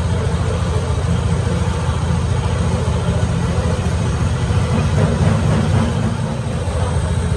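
Large metal lathe running under cut, its motor and gear drive making a steady low rumble as a tool bit turns the end of a spinning steel axle part.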